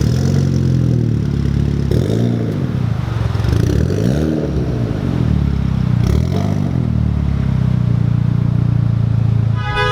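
Four-cylinder sports car engine with a loud aftermarket exhaust, revved up and down several times and then held at a steady drone.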